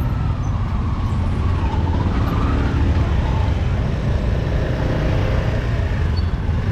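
Street traffic: a steady low rumble of passing motor vehicles, with faint voices of people in the background.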